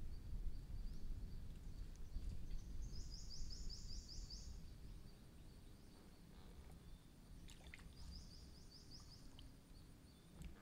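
Quiet outdoor ambience by still water: a low rumble that fades about halfway through, a steady thin high insect tone, and twice a short high trill of about eight quick repeated notes.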